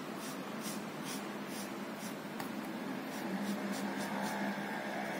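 Felt nib of a whiteboard marker scratching on paper in quick, short, repeated strokes, about three a second, as a shape is filled in with ink.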